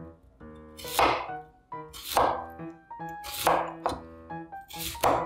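Knife cutting through firm vegetable on a cutting board: four crisp, even cuts about one every 1.2 seconds, over light background music.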